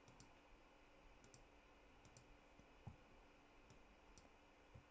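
Faint computer mouse clicks, a handful of light clicks, some in quick pairs, over near-silent room tone.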